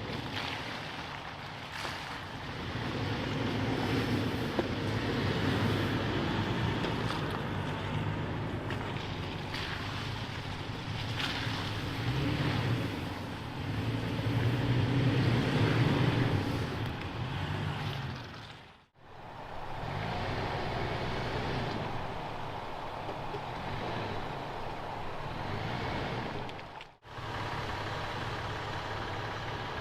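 Off-road truck engine running as it drives a dirt trail, its low note rising and falling over a steady rushing noise. The sound breaks off abruptly twice, about two-thirds of the way through and again near the end.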